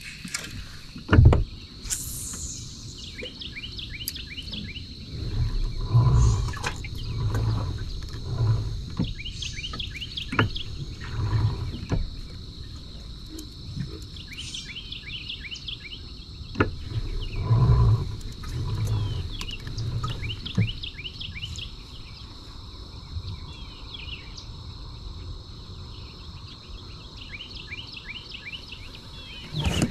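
Songbirds repeating a short chirping song every few seconds over a steady high-pitched hum. Two runs of low thumps come in, one about five seconds in and another around seventeen seconds.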